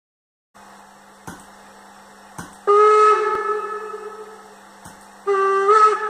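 Steam whistle sound from an ESU LokSound 5 decoder, played through the small speaker of a Roco H0 class 85 model steam locomotive. There are two whistle blasts, one about two and a half seconds in that fades away and one near the end that jumps up in pitch briefly. Under them runs a steady low hum, with a few sharp clicks.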